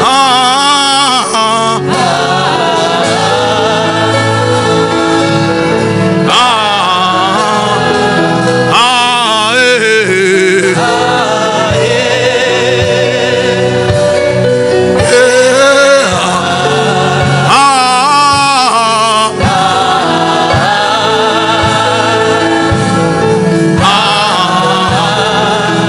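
Gospel worship music: voices singing slow, wavering melodic lines over sustained keyboard-pad chords and a soft low beat.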